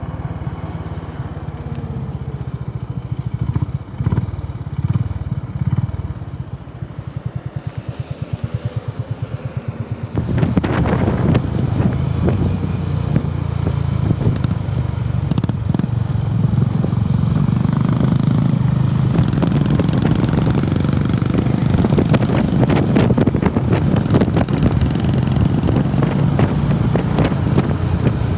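Honda CB350RS single-cylinder engine running at low revs with an even, distinct pulse. About ten seconds in it turns abruptly louder and fuller, with added rush and rattle, and stays that way.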